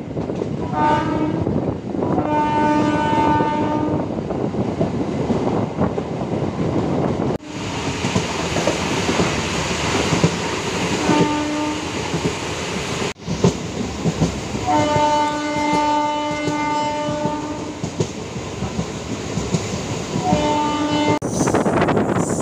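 MEMU electric passenger train running on the rails, its horn sounding five times in short and long blasts of one steady chord.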